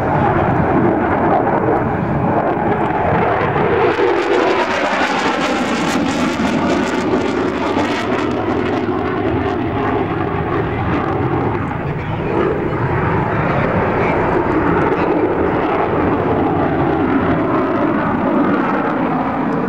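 Jet noise from an F-16D Fighting Falcon's afterburning turbofan in display flight overhead: a continuous loud rushing noise that grows brighter and more hissing for a few seconds from about four seconds in, with a slowly shifting, sweeping tone as the jet moves across the sky.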